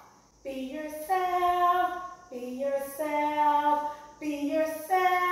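A woman singing a slow, wordless melody in long held notes that step from pitch to pitch.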